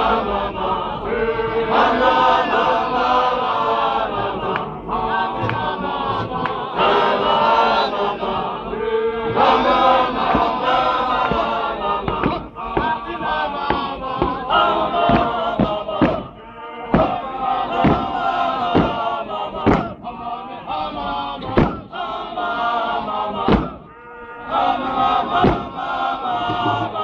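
Men's mokhukhu dance group chanting and singing together. From about halfway through, sharp loud stomps of many feet landing at once on hard dirt come in quick succession, with a few short gaps.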